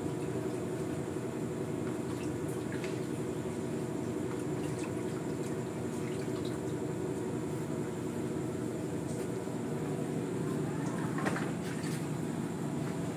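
Steady low hum, with a few faint light clicks and a brief rustle about eleven seconds in, as chopped cabbage is handled between a plastic basin and a metal pan.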